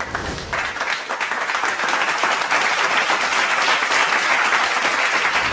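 Applause from many people clapping: a dense, steady patter that starts suddenly and begins to fade near the end.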